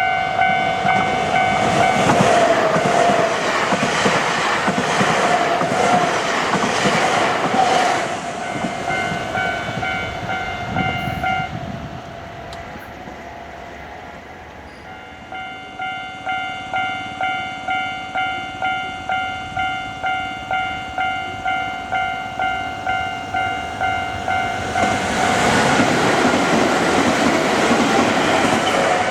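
Nankai Koya Line level crossing's warning bell ringing in a steady repeating pattern, about two strikes a second, while an electric train runs through the crossing with loud wheel-on-rail noise. The bell stops about twelve seconds in and starts again a few seconds later. A second train passes near the end.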